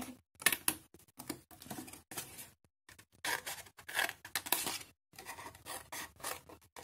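Scissors cutting cardstock in a series of short snips with brief pauses, with the sheet rustling as it is turned between cuts.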